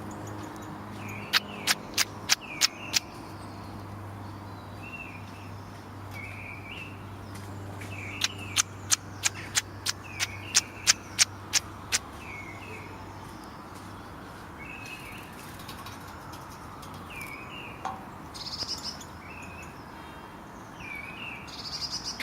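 European robin repeating a short, strange call about every one and a half to two seconds, with two runs of sharp ticks at roughly two to three a second, one about a second in and a longer one near the middle. The uploader links the noise to choking while eating.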